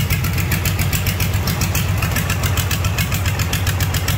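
Allis-Chalmers tractor diesel engine running steadily just after starting, with an even, rapid clatter. The owner suspects the engine lacks good compression.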